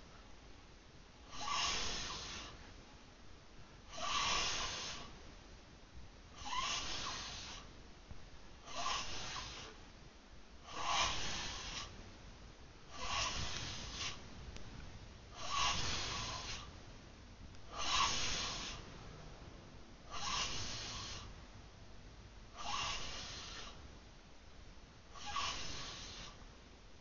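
Snoring: a steady rhythm of breathy, hissing snores, about one every two and a half seconds, each lasting about a second.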